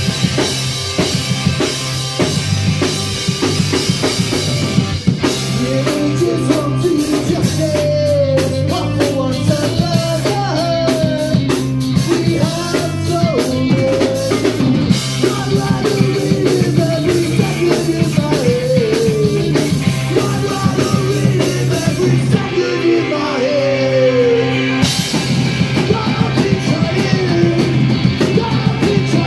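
Punk rock band playing live: a drum kit with cymbals, distorted electric guitars and bass, with a singer's vocals coming in about five seconds in.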